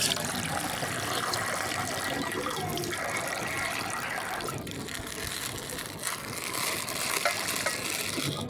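Water pouring steadily, a continuous rush of running water.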